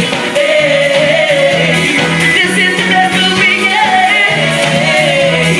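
Live calypso: a male calypsonian singing into a handheld microphone over a live band.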